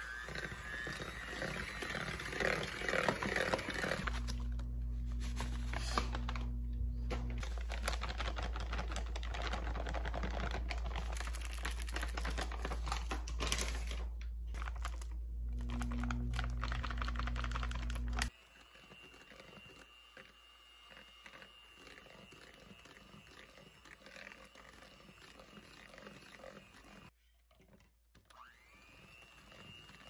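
Electric hand mixer running in a mixing bowl, its beaters clattering over a steady motor hum. About 18 seconds in the sound drops sharply to a much quieter stretch with a faint, high steady whine.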